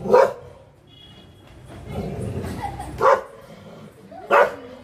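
German Shepherd dog barking: three loud single barks, one at the start and two more about a second apart near the end.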